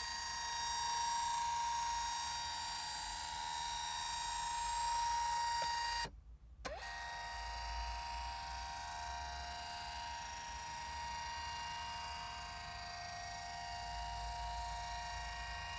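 A computer running: a steady hum with a high electronic whine, cut by a brief gap about six seconds in and then going on with a slightly different whine.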